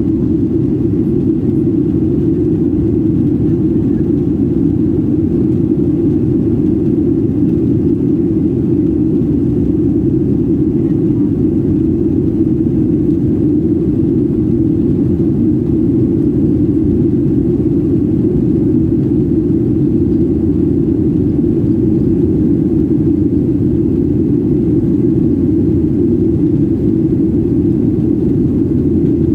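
Steady low rumble of a jet airliner taxiing, heard inside the cabin: engines at taxi power and the airframe rolling along the taxiway, with no change in level.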